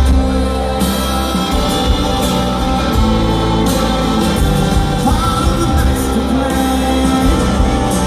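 Rock band playing live with singing over it, loud and bass-heavy, heard from among the audience.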